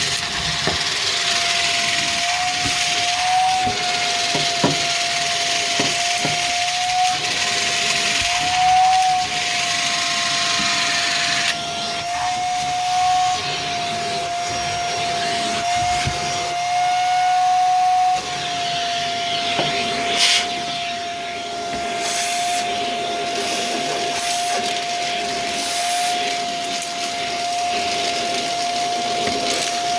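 Vacuum cleaner running with a steady high motor whine over the rush of suction, the pitch wavering slightly as it is pushed along, with scattered crunchy clicks of dry debris being sucked up.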